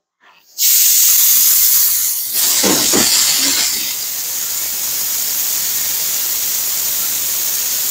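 Compressed air hissing out of a pneumatic motorcycle lift's release valve as the lift lowers. The hiss starts suddenly about half a second in, loudest at first, then settles into a steady hiss.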